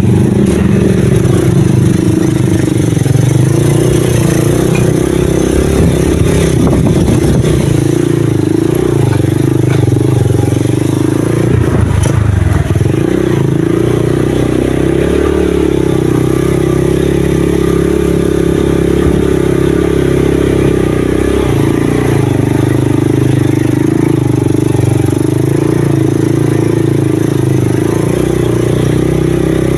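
Small motorcycle engine running steadily under load on a narrow dirt track, heard from on the bike, with its pitch shifting as the throttle changes. There is a brief clatter about twelve seconds in.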